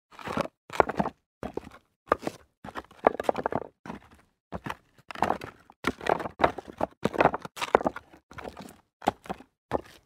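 Footsteps crunching on loose rock debris, about two steps a second, each one a short gritty crunch with silence between.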